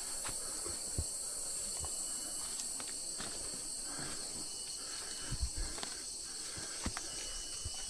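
Steady, high-pitched chorus of jungle insects, with irregular footsteps and small knocks of walking on the trail.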